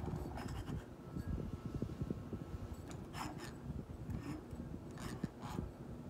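Ceiling fan running with a buzzing hum, overlaid by irregular rubbing and scraping noises, with a few brief louder scrapes.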